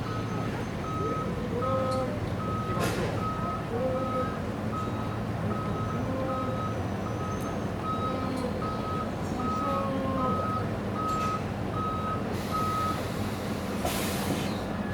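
Vehicle reversing alarm, a steady high beep repeating about one and a half times a second, stopping about two seconds before the end. Voices murmur underneath, with a sharp click about three seconds in.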